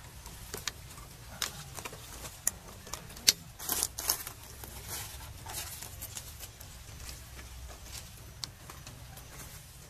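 Irregular light clicks and rustling, with a denser cluster of crackles about three to four seconds in, over a low steady rumble.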